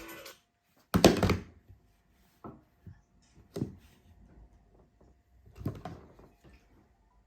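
Four short knocks, the first about a second in and the loudest, then three fainter ones, the last a little longer and rattly.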